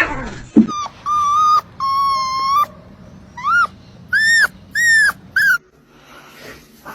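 A dog whining in a run of high calls: two held steady, then several shorter ones that rise and fall in pitch.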